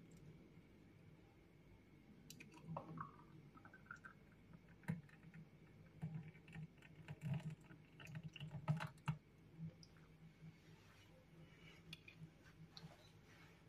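Faint scattered clicks and light taps as a thick blended fruit-and-milk drink is poured from a plastic blender jug into drinking glasses, most of them between about two and nine seconds in. A low steady hum runs underneath.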